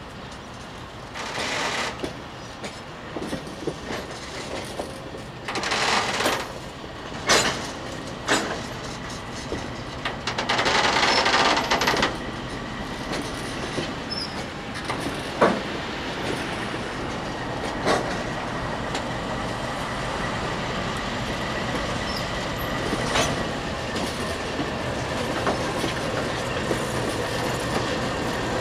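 Freight train of grain hopper wagons rolling past: a continuous rumble of wheels on rail with sharp clanks scattered through and several louder rushing hisses in the first twelve seconds. A thin steady high wheel squeal runs from about twelve seconds in.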